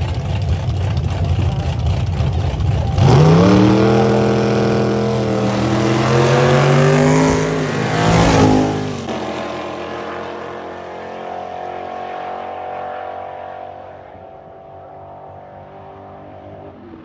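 Drag racing car engines at the start line, then a hard launch about three seconds in, the engine pitch climbing steeply as the car accelerates down the strip. It is loudest about eight seconds in as it passes, then drops in pitch and fades as it runs away.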